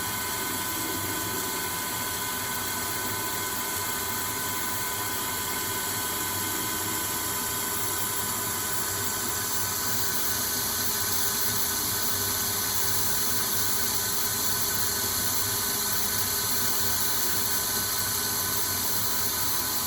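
CNC lathe spindle running while an ISCAR grooving tool cuts a V groove in D2 tool steel: a steady machine whir with constant whining tones and a steady hiss, a little louder from about halfway through.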